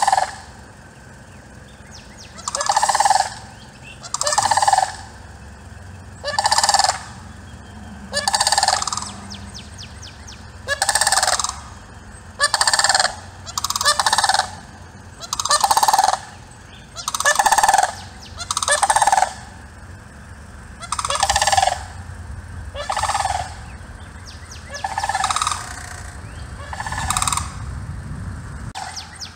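Florida sandhill crane calling: a series of about fifteen loud, trumpeting calls, each under a second long, coming every one and a half to two seconds. A low steady rumble runs underneath.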